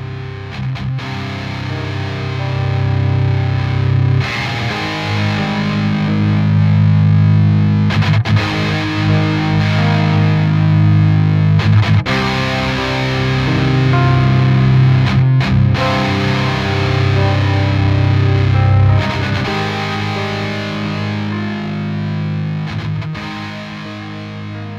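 Outro music: distorted electric-guitar rock with held chords and a sharp accent about every four seconds.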